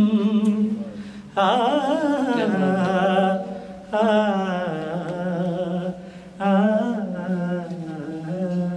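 A man singing a ghazal unaccompanied, drawing out long, wavering wordless notes in three phrases with short breaks between them.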